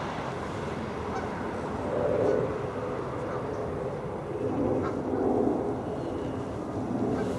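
Low, honking bird calls in three bouts: a short one about two seconds in, a longer one around the middle, and another starting near the end, over steady background noise.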